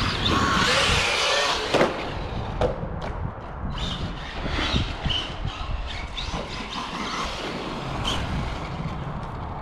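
Arrma Big Rock RC monster truck driving over loose dirt: electric motor and tyres on the dirt, loudest in the first couple of seconds, then quieter with a few scattered knocks and clatters.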